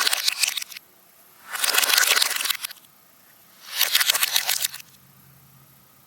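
A person making rough, raspy throat sounds: three noisy bursts of about a second each, the last ending about five seconds in.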